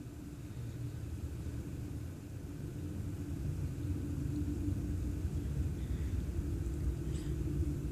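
Steady low rumble with a steady hum, slowly growing louder, with a faint tick about seven seconds in.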